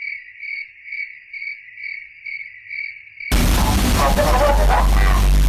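Cricket-chirping sound effect, a short chirp about twice a second. About three seconds in it cuts out for a loud, full sound with heavy bass that lasts about two seconds and stops abruptly, and then the chirping resumes.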